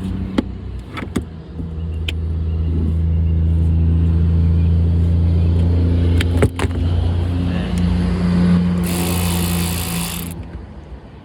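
Steady low engine hum that swells a little in the middle, with a few sharp clicks, and a burst of hissing noise near the end.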